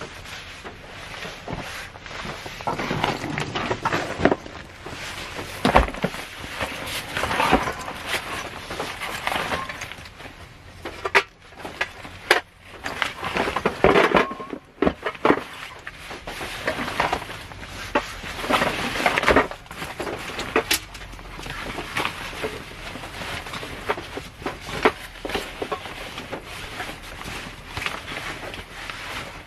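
Plastic snack wrapping crinkling and crackling as it is handled, in irregular bursts of a second or two with sharp clicks between short pauses.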